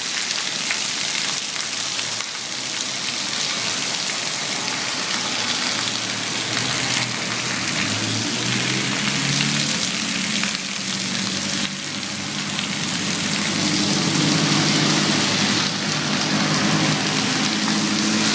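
Heavy rain pouring down as a steady hiss of water. From about seven seconds in, a low engine hum joins it and grows louder toward the end.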